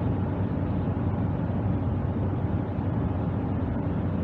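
Steady road noise heard inside a car cabin while driving through a road tunnel at about 55 mph: a low, even rumble of tyres and engine.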